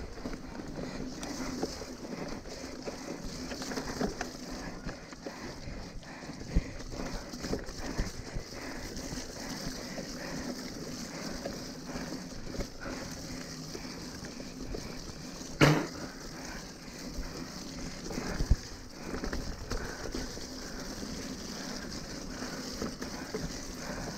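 Mountain bike ridden over wet, muddy dirt trail, heard from a camera on the rider: steady tyre and drivetrain noise with scattered rattles and knocks. A sharp clunk about two-thirds of the way in is the loudest sound, with another a few seconds later.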